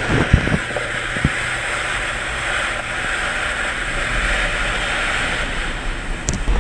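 Steady rushing of wind and surf, with a few low thumps in the first second and a sharp click near the end.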